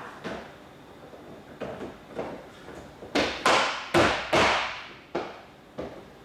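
ABS plastic interlocking floor tiles being dropped into place and clipped together, giving a series of hollow plastic knocks and clacks. About three seconds in come four louder clacks in quick succession.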